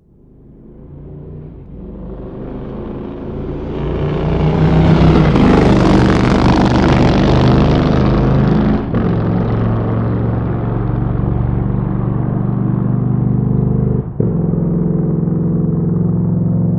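Motorcycle engine running steadily, fading in from silence and growing loud over the first five seconds. There is a brief dropout about fourteen seconds in.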